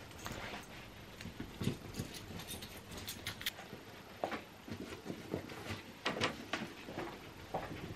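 A canvas tote bag being packed by hand: fabric rustling with irregular light knocks and taps as objects go in.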